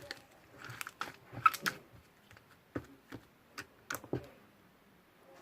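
A series of irregular short clicks and light taps, about a dozen, unevenly spaced.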